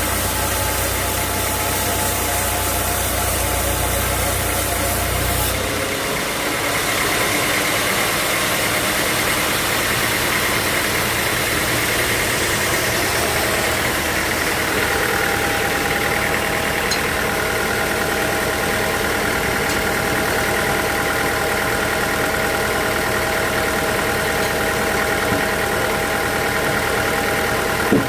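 Sawmill machinery running steadily. About six seconds in, a deep low hum drops away and a steady higher-pitched whine carries on.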